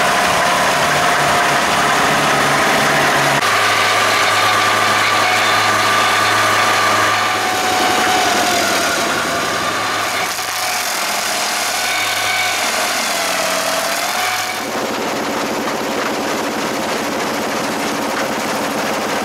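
Engines of a tracked stump grinder and, in the last few seconds, a 1951 brush chipper running steadily. The grinder engine's pitch dips briefly twice.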